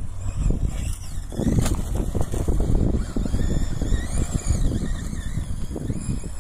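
Vaterra Glamis RC buggy's electric motor whining, rising and falling in pitch as it speeds up and slows down over the dirt, over a low rumble of tyres and wind.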